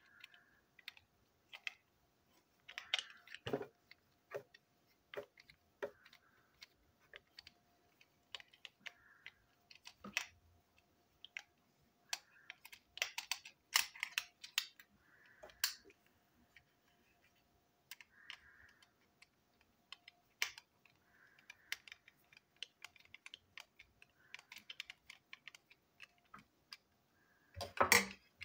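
Irregular small clicks and taps of plastic toy-train parts being handled and fitted together on a tabletop, with a louder cluster of clicks near the end.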